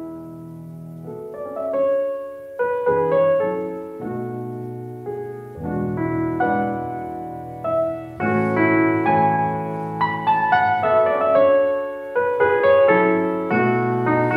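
Background piano music: a gentle melody of held notes that grows louder and fuller about eight seconds in.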